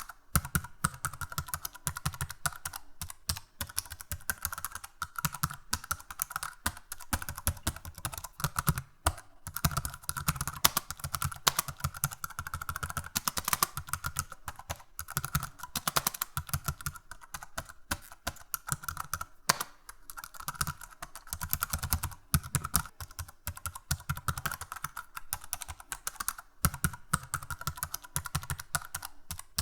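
Computer keyboard typing: fast, uneven key clicks, several per second, with brief pauses between runs.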